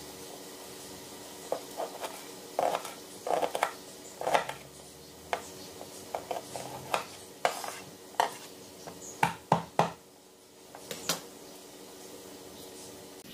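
Chef's knife cutting a small onion on a wooden cutting board: irregular sharp knocks of the blade hitting the board, with the loudest few coming quickly together later on.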